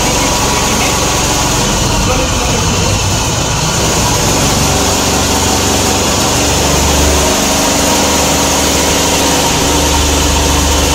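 DC compound motor and its coupled alternator running up as the starter handle is moved slowly through its steps: a steady machine hum and whir, its tones shifting as speed builds, with the low hum swelling about seven seconds in and again near the end.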